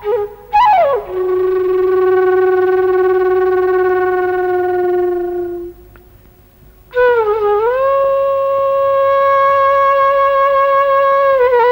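Bamboo flute playing a slow solo of long held notes. A short falling phrase leads into a long low note that fades out about halfway through, then after a brief pause the flute dips and rises into a higher held note, with ornamented turns near the end.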